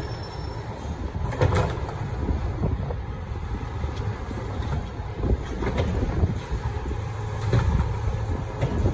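Waste Management garbage truck's diesel engine running steadily while its automated arm lifts a wheeled trash cart, tips it into the hopper and sets it back down, with several sharp knocks as the cart bangs and is shaken empty.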